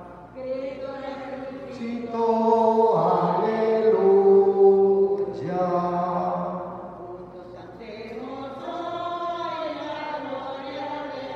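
Slow Spanish-language hymn sung in long held notes as the offertory hymn. It is loudest about a third of the way in, then softer.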